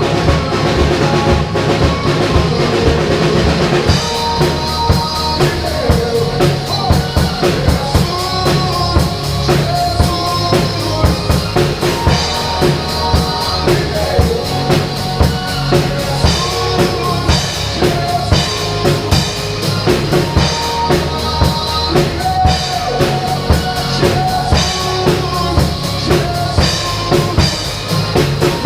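Drum kit played along to a recorded worship-band track, with bass drum, snare and rimshots keeping a steady beat. About four seconds in the sound grows fuller, with more cymbal.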